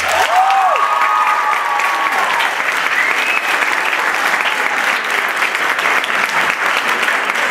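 Audience applauding steadily, with a few cheers in the first three seconds.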